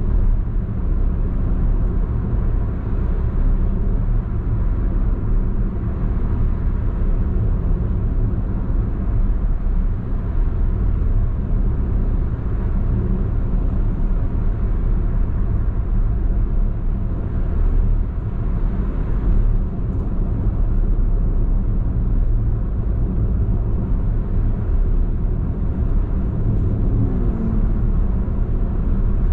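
Steady in-cabin road noise of a 2018 Perodua Alza cruising at highway speed: a low, even rumble of tyres and engine through the car's body.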